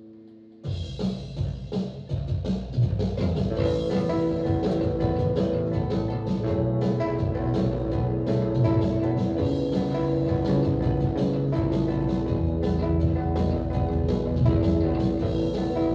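Live shoegaze band of distorted electric guitar, bass guitar and drum kit crashing in together about half a second in, after a held chord. It then plays on steadily with a dense wall of guitar over driving drums.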